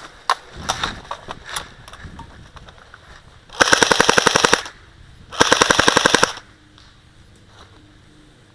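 Airsoft gun firing two full-automatic bursts, each about a second long with a short pause between. Each burst is a rapid, even string of sharp clicks.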